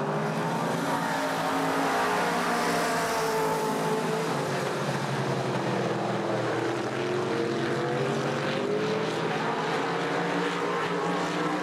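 Several late model stock cars racing around the track, their V8 engines running together. The pitch rises and falls as the cars circle past.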